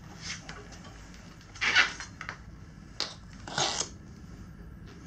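Tire irons scraping against a motorcycle wheel rim as a stiff knobby tire bead is pried over it: three short scrapes, the loudest about two seconds in, with a sharp click around three seconds in.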